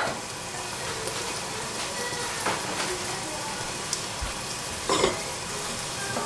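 Food sizzling in hot oil in a pan on a gas stove, a steady frying hiss with a few short clicks and knocks, the loudest about five seconds in.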